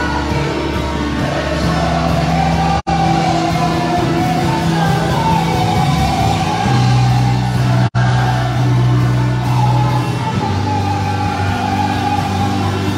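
Live congregational gospel worship: a male and female vocal group singing into microphones over sustained instrumental backing. The sound cuts out for an instant twice, about three and eight seconds in.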